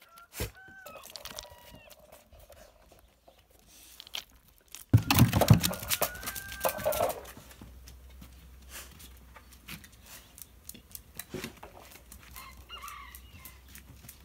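A rooster crows once, about five seconds in, in a call about two seconds long that holds its pitch and then falls away. Shorter clucking calls come before it, and fainter bird calls come near the end.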